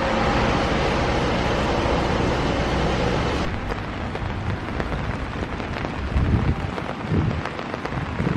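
Rain and strong wind on the microphone: a dense rushing noise that drops suddenly about three and a half seconds in to a lighter rain patter broken by low thumps of wind buffeting.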